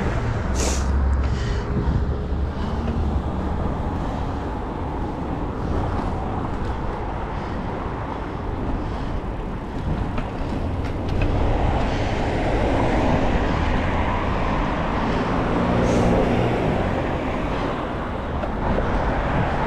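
Steady rush of wind over the microphone of a moving bicycle, mixed with city road traffic.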